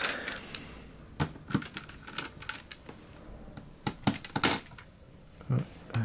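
Scattered small clicks and taps of a screwdriver and tiny screws against the hard drive's metal rails and the laptop chassis, as the drive-rail screws are worked into place.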